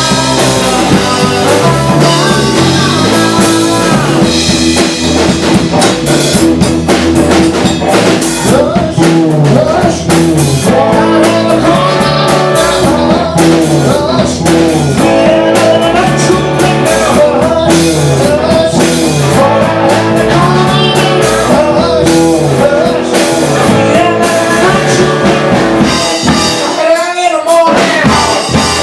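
Rock band music: drum kit, guitar and bass with a singing voice, playing steadily; the low end drops out briefly near the end.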